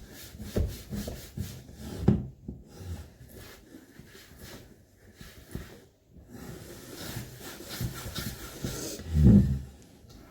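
Rubbing and handling noises with a scatter of dull knocks, the heaviest a low thump about nine seconds in.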